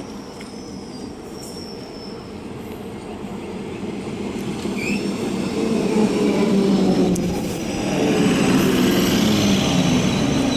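Old electric multiple unit (EMU) local train pulling into the platform: the rumble of its wheels and motors grows louder as the coaches come alongside about halfway through, then runs on steadily as it slows, with some wheel squeal.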